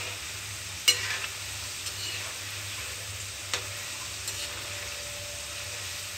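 Besan-batter-coated peanuts deep-frying in hot oil in a kadhai on low flame, a steady sizzle. A metal slotted spoon clicks sharply against the pan about a second in and again past three seconds.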